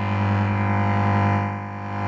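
Home-made lightsaber hum: a steady, buzzing low hum of layered humming sounds played from a speaker and picked up by a microphone moved past it, dipping slightly in level about three-quarters of the way through, then swelling back.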